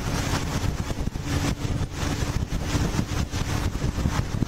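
Motorcycle riding at road speed, heard from a camera on the bike: heavy wind noise buffeting the microphone over a steady engine drone.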